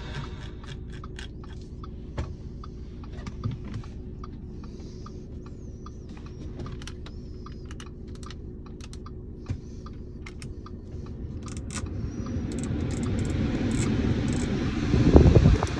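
Button clicks on an Audi A5's centre-console multimedia and climate controls, a quick irregular run of clicks. From about twelve seconds in, a steady rushing sound grows louder as the climate blower fan comes up, with a loud low thump near the end.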